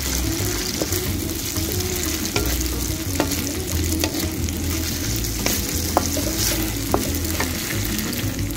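Tofu and dried shrimp sizzling as they fry in oil in a metal wok, stirred and scraped with a wooden spatula, with scattered knocks of the spatula against the pan.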